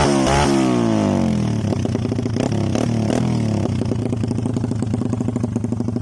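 Rusi Korak 110 mini bike's 110 cc engine through an aftermarket AUN pipe exhaust, revved in quick throttle blips at the start, then settling to a steady, pulsing idle with a few short blips about halfway.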